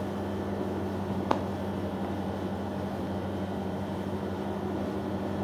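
Steady low hum of a room air conditioner, with one short tap of a marker on a whiteboard about a second in.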